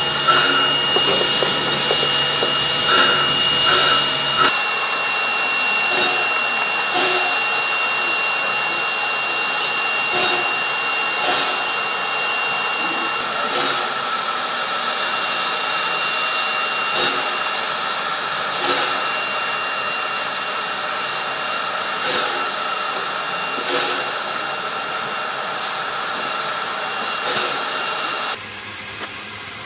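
Steam hissing steadily from the cylinders of steam locomotive NM25, a 1925 NM-class narrow-gauge engine, with a thin high steady tone over the hiss.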